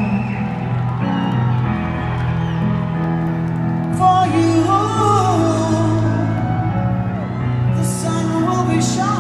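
Music with a singing voice over held instrumental chords.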